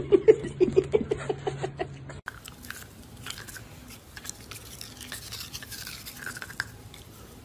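For about the first two seconds, a quick run of short pitched sounds, about six a second, comes from two dogs tugging a plush toy. After a sudden cut, a dachshund chews on a toothbrush: teeth click and scrape irregularly on the plastic and bristles.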